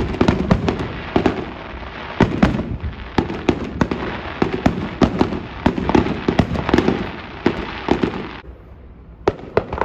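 Aerial fireworks display: a dense, rapid string of bangs and crackles from bursting shells over a low rumble. It thins out sharply about eight and a half seconds in, and a few separate pops follow near the end.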